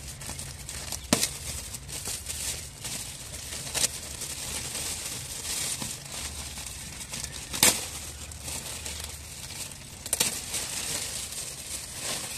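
Metallic foil and clear cellophane gift wrap crinkling as a present is unwrapped by hand. A few sharp snaps of the wrapping stand out over the steady rustle.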